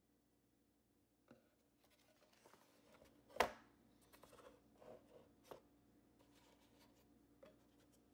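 Faint handling noises of a picture frame being taken apart by hand: one sharp click about three and a half seconds in, then a few light ticks and scrapes from the frame's backing and glass.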